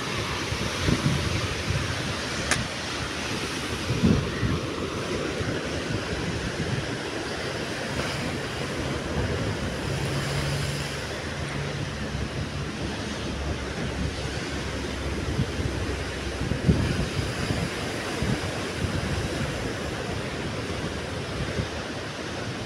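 Rough sea surf breaking and washing over the rocks along a seawall in a steady rush, with wind buffeting the microphone in a few low gusts.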